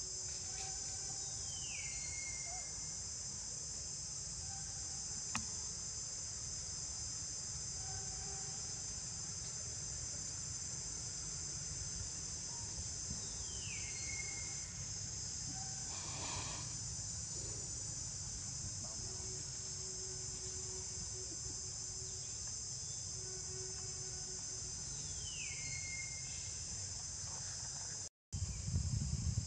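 Steady high-pitched insect chorus, with a short falling whistle-like call three times, about twelve seconds apart, and a low rumble underneath.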